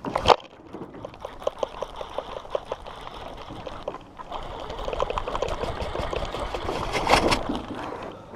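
A short sharp splash, then water trickling and splashing in many small rapid bursts, busier in the second half and loudest about seven seconds in.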